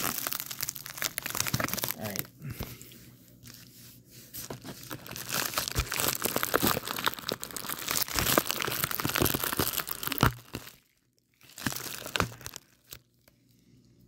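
Plastic bubble mailer crinkling and rustling as it is handled and opened, a dense run of small crackles. There is a brief pause about eleven seconds in, then a few more crinkles before it stops about thirteen seconds in.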